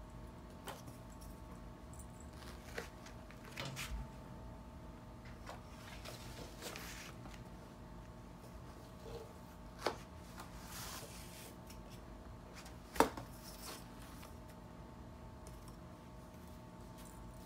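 Quiet room with a faint steady hum, broken by a few sharp light taps and clicks, the loudest about ten and thirteen seconds in, and soft rustles, from wand cat toys and a cat at play on a carpet and cardboard scratcher.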